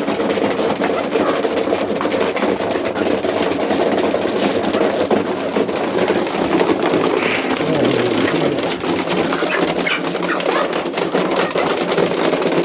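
A flock of chickens clucking together: a steady, dense din of many birds calling at once.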